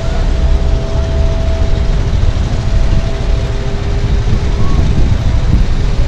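City street traffic rumbling steadily, with no bell yet.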